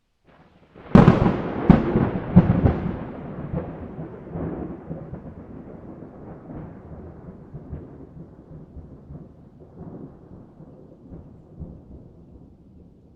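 A thunderclap: a sharp crack about a second in, two or three more cracks over the next couple of seconds, then a long rumble that slowly fades away.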